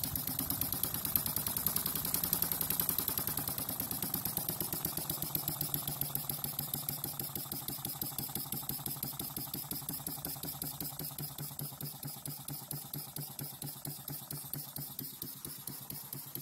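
Scratch-built half-size model single-acting steam engine running, a fast, even beat that gradually slows and gets quieter toward the end.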